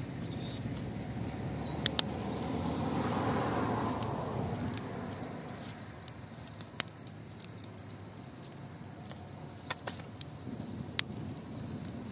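Wood fire crackling with scattered sharp pops while a cloth is flapped over it to fan the flames, with a rushing swell about two to four seconds in.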